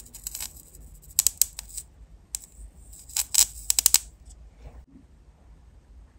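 Fine metal tweezers clicking and tapping in quick clusters of sharp ticks while handling tiny candy-topping pieces. The clicks stop about four seconds in.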